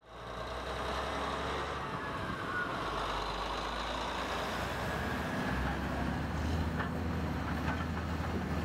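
Heavy engine-driven machinery running with a steady low drone. Its pitch glides briefly about two to three seconds in, and a few sharp knocks come near the end.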